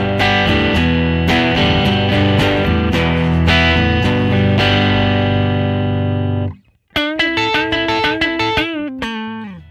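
Fender Jaguar Classic Player Special HH electric guitar on its neck humbucker at full coil, played direct through an amp simulator with a slightly glassy attack. Strummed chords ring for about six and a half seconds and stop abruptly. After that comes a run of single notes that bend and waver in pitch.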